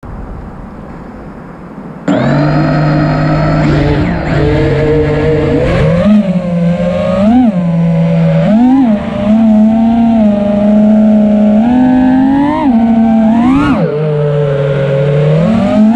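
ImpulseRC Apex FPV quadcopter's brushless motors and propellers whining, heard from the onboard camera. About two seconds in, the whine starts suddenly, then its pitch swoops up and falls back again and again as the throttle is punched and eased.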